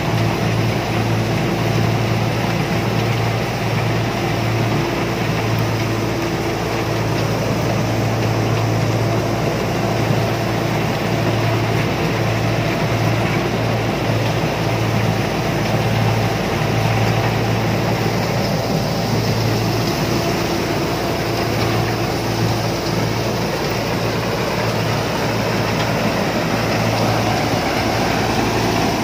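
Combine harvester's diesel engine and threshing machinery running steadily under load.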